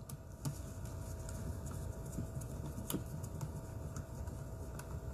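A few faint clicks and taps of the plastic parts of an iRobot Braava jet M6 robot mop being handled during reassembly, the clearest about three seconds in, over a low steady hum.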